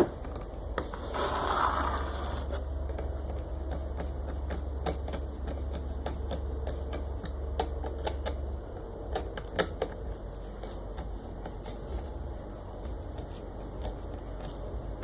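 Scattered small clicks and taps of small screws, washers and parts being handled and fitted, with a brief rustle about a second in, over a steady low hum.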